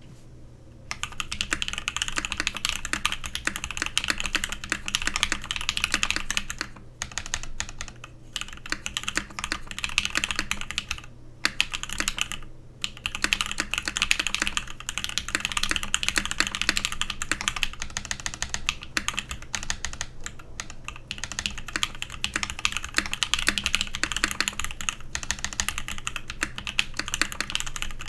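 Continuous typing on a Godspeed75 mechanical keyboard with lubed C³×TKC Tangerine linear switches (UHMWPE housings, POM stems, 62 g springs) and lubed stabilizers. A dense run of keystrokes starts about a second in and is broken by a few short pauses.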